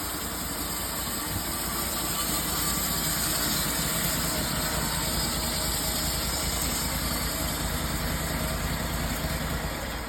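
Subaru Robin gas engine of an EZ band sawmill running under load as the blade cuts a board from a log. It grows louder about two seconds in, holds steady, and eases off near the end as the cut finishes.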